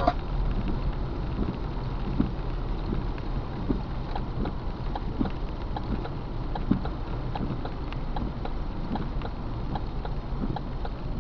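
Inside a car driving on a rain-soaked road: a steady rumble of tyres and engine, with light irregular ticks of raindrops striking the windshield.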